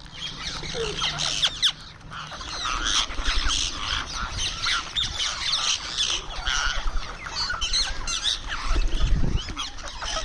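Indian ringneck parakeet calls: a dense, continuous run of short squawks and chirps.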